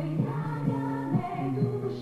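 A woman singing a pop song with band accompaniment, over a bass line that steps from note to note about twice a second.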